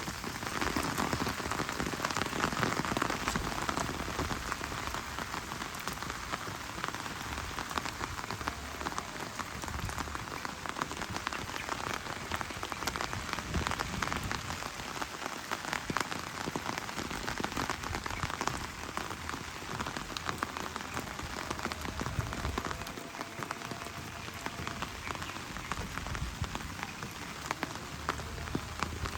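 Steady heavy rain falling on surfaces, a dense haze of sound full of small sharp ticks from individual drops, slightly heavier in the first few seconds.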